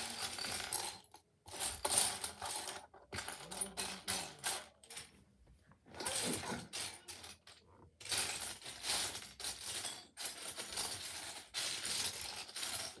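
Loose plastic Lego pieces clattering and rattling in repeated bursts as hands rummage through them, with short pauses between bursts.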